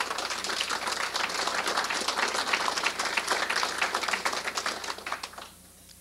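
An audience applauding, a dense patter of many hands clapping, which dies away about five and a half seconds in.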